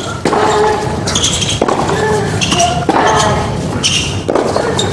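Tennis rally on a hard court: racket strikes on the ball about every second and a half, four in all, each followed by a short voice-like sound.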